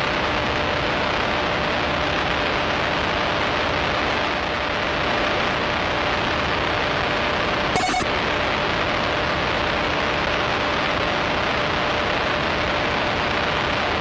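Harsh noise wall: a loud, dense, unchanging wall of distorted static with a faint steady hum beneath it, and one brief crackle about eight seconds in.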